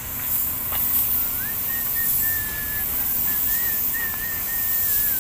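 Air spray gun hissing steadily as clear coat is sprayed onto a car's bumper, with a thin, wavering high whistle starting about a second in and carrying on.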